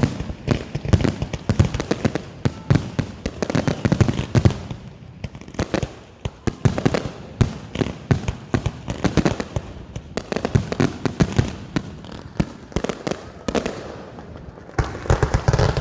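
Aerial fireworks bursting in rapid, continuous succession, with many bangs and crackles packed close together.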